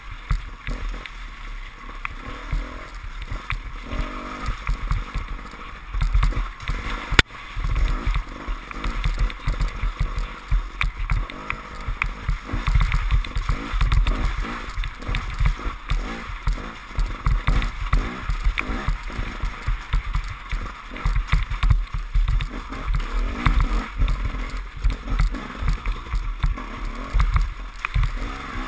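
KTM enduro motorcycle engine running as the bike is ridden through mud and puddles, with wind buffeting the microphone in irregular low rumbles.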